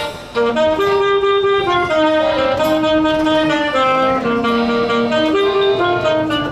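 Saxophone playing a melody of mostly held notes, with a short break just after the start.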